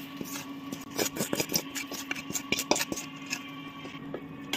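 Metal spatula scraping and tapping against a steel kadai and plate as dry roasted vermicelli is tipped out: a quick run of clicks and scrapes, busiest in the middle, over a faint steady hum.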